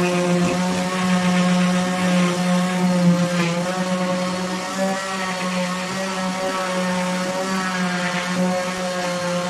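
Portable electric sander running steadily, its motor humming as it sands a plywood surface, with slight wavers as the pad is pressed and moved.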